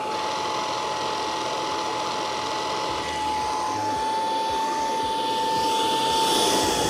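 Proscenic P11 cordless stick vacuum running with its motorised mini upholstery brush spinning: a steady high motor whine over a rush of air, getting a little louder about six seconds in as the brush works the fabric.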